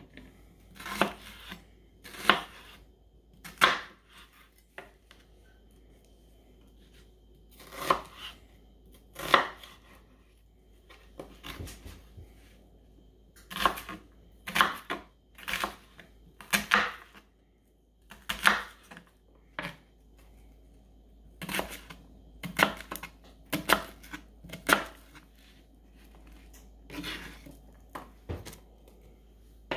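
Chef's knife chopping a peeled onion on a plastic cutting board: sharp, uneven knocks of the blade against the board, in short runs with pauses between.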